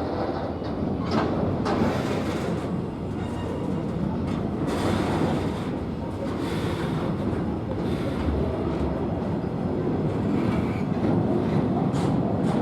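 Train rolling past with a steady rumble and a few sharp clicks at irregular moments, as from wheels over rail joints.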